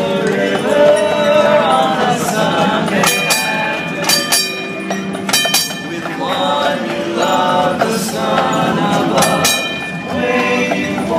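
Barbershop quartet of men singing unaccompanied in close harmony, with several long held chords.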